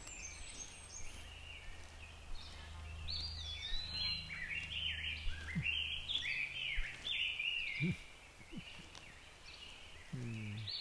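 Birds chirping and calling in a quick run of short, swooping notes, thickest in the middle, over a low steady hum that stops about two-thirds of the way through.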